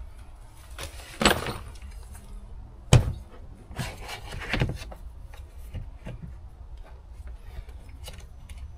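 Parts of an Aquor wall hydrant being pushed and twisted by hand into the wall housing: a knock about a second in and a sharper knock near three seconds, then scraping and rubbing with small clicks, over a low steady rumble.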